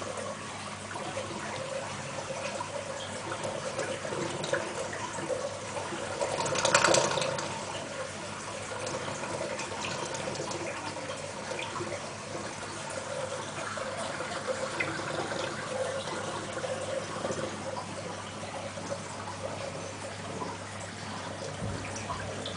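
Aquarium water circulation running: steady trickling and splashing water over a constant low hum, with one brief louder rush about seven seconds in.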